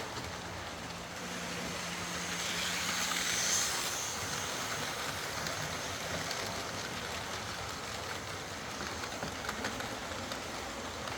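OO gauge Lima Class 55 Deltic model locomotive running along the track: a steady motor hum with the rush of wheels on rail, swelling to its loudest about three and a half seconds in.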